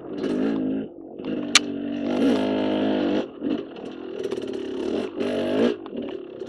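KTM dirt bike engine revving in a series of short throttle bursts, its pitch rising and falling with each one. A single sharp click comes about one and a half seconds in.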